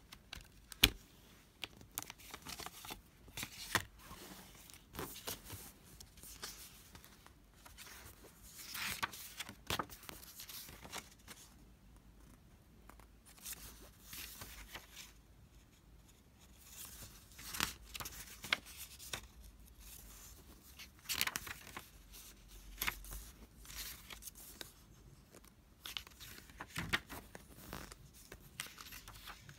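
Hands handling a plastic CD jewel case and its paper booklet: a sharp click as the case is opened about a second in, then repeated paper swishes and rustles with scattered taps as the booklet is taken out and its pages are turned.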